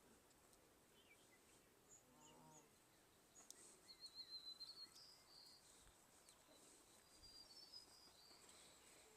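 Faint outdoor birdsong: scattered high chirps and a short warbling trill a little after the middle, with one brief lower pitched call about two seconds in.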